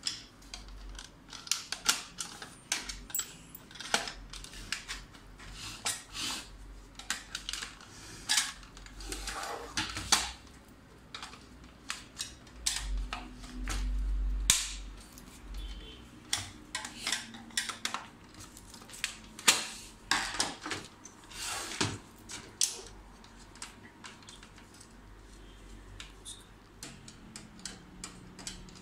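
Sharp plastic clicks and snaps of the HP LaserJet P1102's housing covers being unclipped and handled, irregular knocks scattered throughout, with a dull low rumble for a couple of seconds around the middle.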